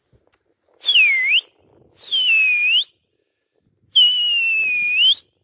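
A man's loud whistle, three times: each starts high, dips in pitch and swoops back up, the last one the longest. It is a pigeon keeper whistling at his flock in flight to drive them on.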